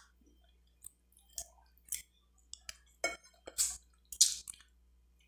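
A person eating chicken from a bowl of chicken soup by hand: a scattering of short, wet mouth smacks and clicks, about eight in all, a few tenths of a second to half a second apart.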